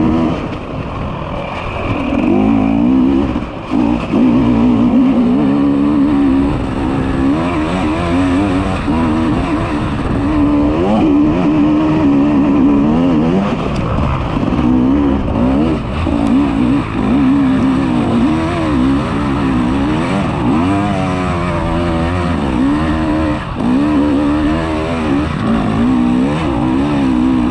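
Enduro motorcycle engine revving up and down again and again, its pitch rising and falling throughout.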